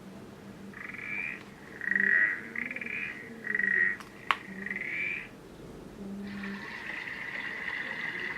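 Recorded frog croaking played from a children's sound book's small speaker: five croaks of about half a second each, with a sharp click about four seconds in. A steady hissing sound starts about six seconds in.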